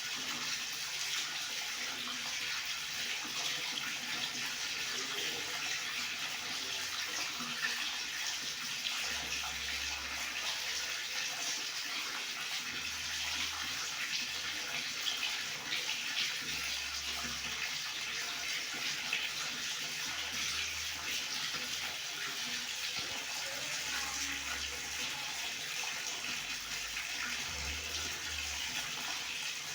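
Water running steadily from a tap, an even splashing hiss that doesn't change.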